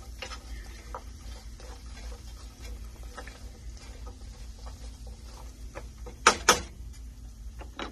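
A wooden spoon stirring sautéing carrots and onions in a frying pan, with scattered small scrapes and taps against the pan. Two sharp knocks come close together about six seconds in.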